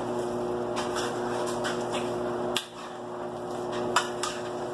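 Cooking spoon knocking and scraping in a pot as chicken is stirred into curry: a few sharp clicks, over a steady hum.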